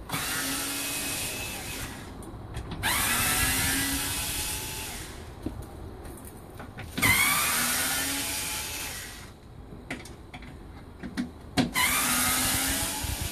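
Cordless power screwdriver running in four bursts of about two seconds each, each rising quickly to speed, as it backs out the screws holding the front cover of a Fronius Galvo inverter.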